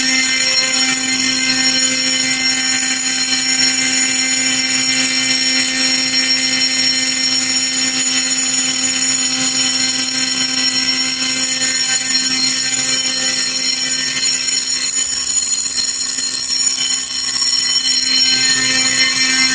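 Simplex 4051 vibrating fire alarm horn sounding continuously: one loud, steady, harsh tone full of high overtones, with a brief dip in loudness a few seconds before the end.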